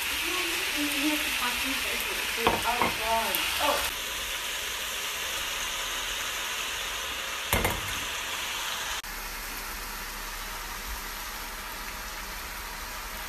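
Chicken, vegetables and noodles sizzling in a hot wok as they are stir-fried. A few seconds in there are brief pitched sounds, and a little past halfway a short knock.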